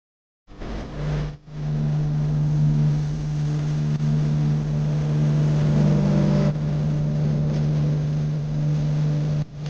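Steady car-cabin drone while driving: a low engine hum with road and wind noise. It cuts in suddenly about half a second in and drops out briefly twice.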